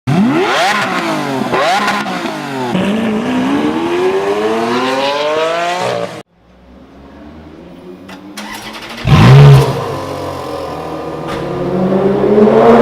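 Supercar engine accelerating hard through the gears, its pitch climbing and dropping back at each upshift, then cutting off abruptly. After a quieter stretch a second engine comes in loudly about nine seconds in and its revs climb slowly.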